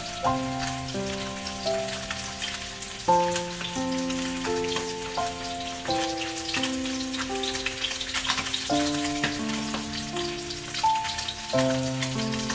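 Whole fish shallow-frying in oil in a steel wok: a steady sizzle with fine crackles. Background music of sustained chords, changing every second or two, plays over it.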